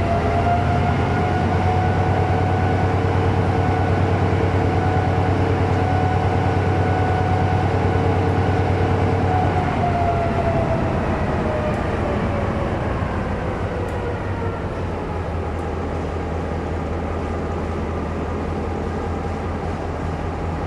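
Diesel shunting locomotive's engine running at a steady, raised speed, then about ten seconds in its pitch falls away over several seconds as it throttles back to a lower, steady running speed.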